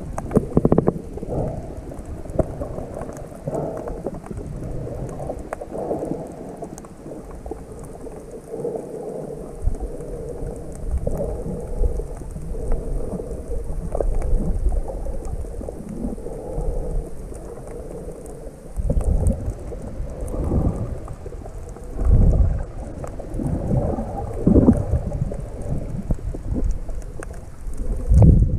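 Muffled low rumble and swishing of water heard through a camera held underwater. It swells and fades irregularly, with several louder surges in the second half.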